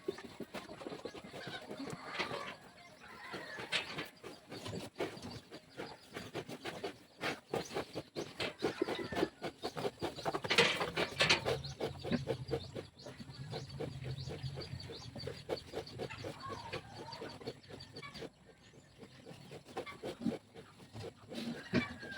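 Livestock in a pig pen: a sow grunting among many short knocks and rustles, with birds calling now and then. The knocking and calls are busiest about halfway through.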